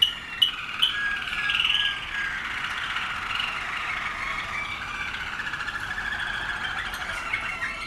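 Caged canaries singing: long rolling trills and warbles, with a few sharp chirps in the first second.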